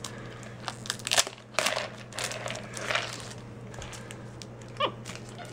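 Capuchin monkey rummaging in a plastic foraging toy for treats: irregular clicks, rattles and crinkling. A short squeak comes about five seconds in.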